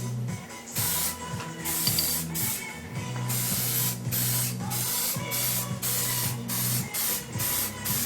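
Primer being sprayed onto a freshly made tow hook in about ten short bursts of hiss, each under a second, with brief pauses between.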